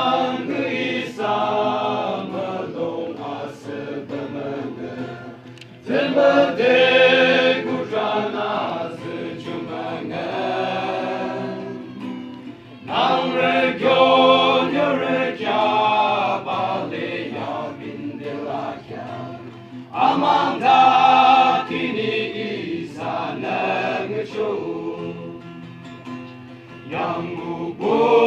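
Men's choir singing together in chorus, accompanied by an acoustic guitar. The song comes in phrases that start loudly about every seven seconds and fade away.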